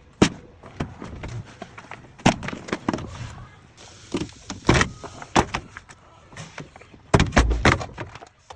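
Plastic water shield being pulled off the inside of a Ford Transit's sliding door: scattered clicks and knocks with a stretch of rustling, and a heavier thump about seven seconds in.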